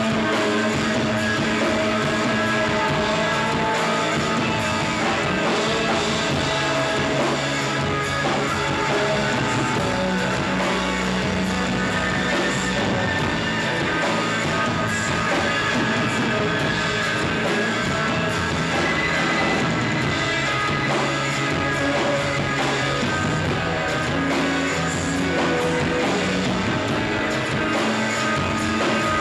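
Rock band playing live: electric guitars and bass in a dense, continuous wash at a steady level.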